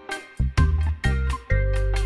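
Background music with a steady beat of drum hits over bass notes.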